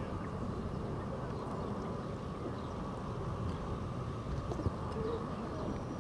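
Steady low outdoor rumble with a few faint bird chirps. About two-thirds of the way through comes a single sharp thud: a boot kicking a rugby ball off a kicking tee.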